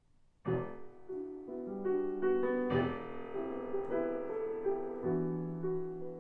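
Solo piano intro: chords and single notes struck and left to ring, starting about half a second in.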